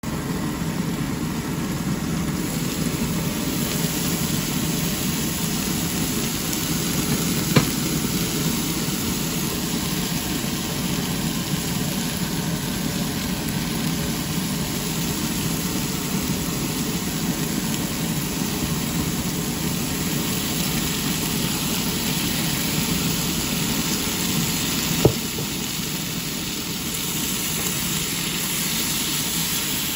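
Mixed vegetables frying in a pan, a steady sizzling hiss with a low rumble under it, broken by two sharp clicks of a utensil or lid against the pan, one about a quarter of the way in and one near the end.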